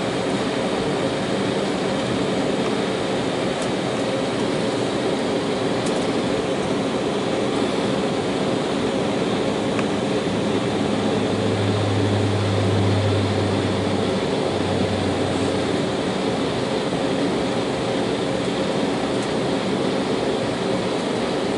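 Cabin noise inside an Embraer 190 taxiing, its CF34 turbofan engines at taxi power: a steady hum with several held tones. A deeper drone swells in about halfway through and fades a few seconds later.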